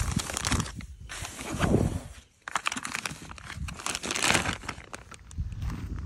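Irregular rustling and crackling in bursts of about half a second to a second, cutting out briefly a little over two seconds in.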